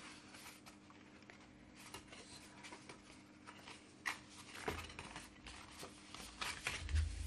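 Cardstock being folded and handled by hand: soft paper rustles and crinkles, with a light knock about halfway through and a few low thumps near the end.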